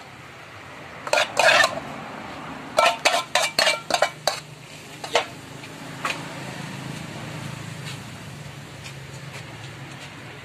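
Metal spoon and dishes clinking and clattering: two quick runs of sharp clinks in the first half, then a few single clinks. A low steady hum runs underneath.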